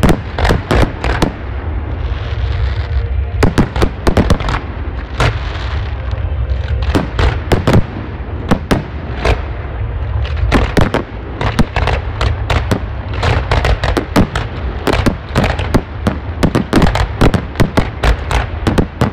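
Fireworks display: aerial shells bursting overhead in many sharp bangs at quick, irregular intervals, coming thicker in the second half, over a steady low rumble.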